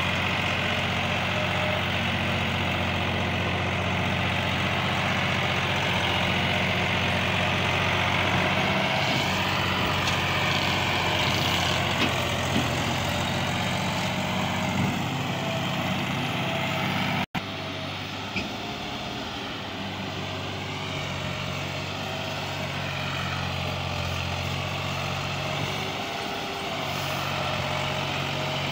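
Massey Ferguson 260 tractor's three-cylinder diesel engine running steadily under load while hauling a heavily loaded sugarcane trolley. There is a brief break about two-thirds of the way in, after which the engine note is slightly different.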